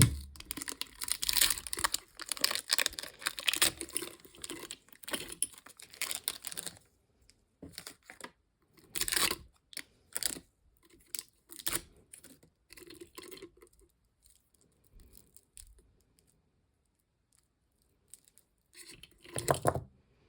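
Paper gift bag and its wrapping crinkling and tearing for about seven seconds as the jar is unpacked. Then come scattered small clicks and knocks of handling, a quiet stretch, and a short clatter near the end.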